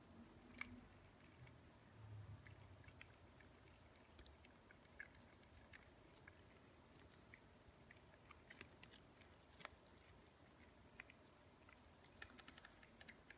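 Faint wet licking and smacking clicks from Ragdoll cats lapping creamy lickable treat puree from a squeezed tube, coming in quick irregular runs.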